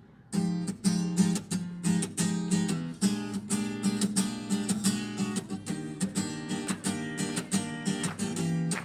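Acoustic guitar strummed in a steady rhythm, an instrumental passage between sung lines, after a brief pause at the start.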